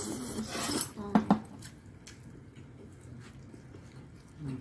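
A short rustle, then two sharp clinks of metal chopsticks about a second in, followed by faint handling of the pizza tray.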